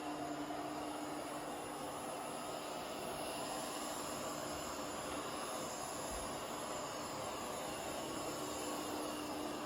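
Ecovacs DEEBOT X1 OMNI robot vacuum running: a steady whirring motor noise with a constant low hum and a faint high whine.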